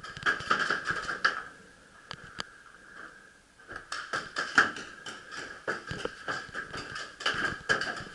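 Paintball markers firing in irregular strings of sharp pops, several a second. They thin to a few single shots from about two seconds in, then fire thickly again from about four seconds in.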